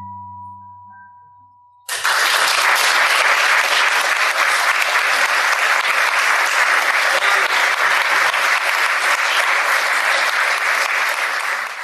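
The last acoustic guitar chord rings out and fades, then an audience breaks into steady applause about two seconds in.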